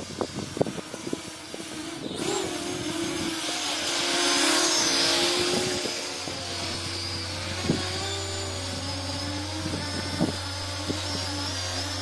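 Parrot Anafi quadcopter's motors and propellers buzzing with a wavering, several-toned whine as it flies low coming in to land. It grows louder about four to five seconds in, then holds steady, with a few sharp knocks in the first two seconds.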